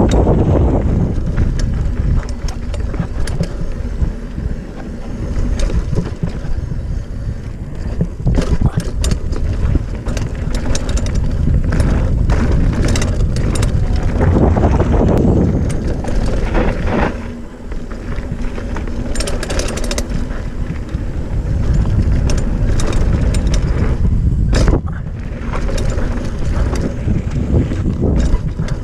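Wind buffeting a helmet-mounted action camera as a mountain bike rolls fast down a dirt and gravel trail, with frequent rattles and knocks from the bike over bumps, a sharp one about three quarters of the way through.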